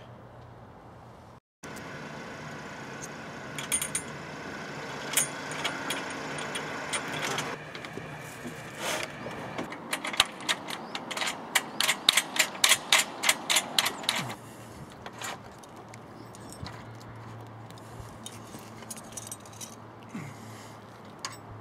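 Metal clinking and clicking of solar-panel mounting clamps and tools being fitted to the roof rails, with a run of quick, even clicks, about four a second, for several seconds in the middle.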